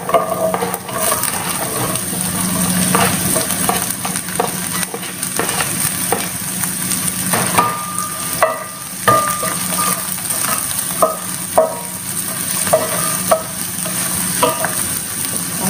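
Vegetable strips (carrot, green beans, bell pepper) sizzling in hot oil in a nonstick pan as they are stir-fried, with a steady sizzle and repeated clicks and scrapes of the spoon against the pan.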